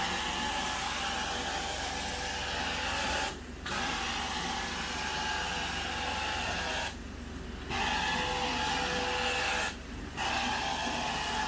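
Carpet extraction wand being stroked across carpet: a steady suction hiss and drone with a constant whine, the hiss dropping out briefly three times between strokes.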